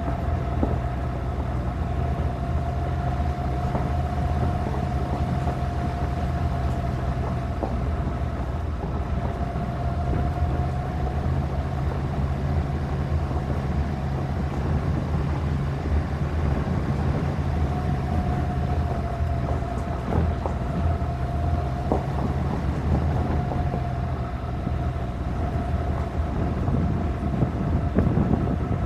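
Suzuki Grand Vitara driving over a gravel road, heard from a microphone on the roof: steady low engine hum and tyre-on-gravel noise, with a few knocks from bumps and stones.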